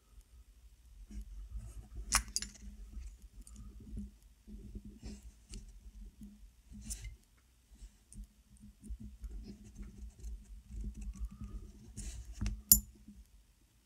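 Small metal tank parts and tools being handled close to the microphone while a coil is adjusted on a vape tank's RBA deck: scattered light clicks and scrapes, with a sharper click about two seconds in, another around seven seconds, and the loudest one near the end.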